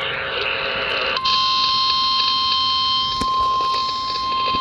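NOAA Weather Radio warning alarm tone: a single steady high-pitched tone of about 1050 Hz that starts about a second in and holds, signalling that a new warning follows. Before it comes about a second of hissing noise.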